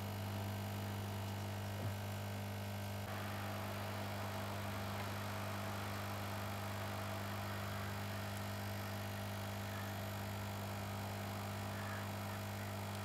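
Steady low hum and airflow hiss from a hot-air rework station held over a chip during a reflow; the hiss fills in about three seconds in. A faint click near two seconds.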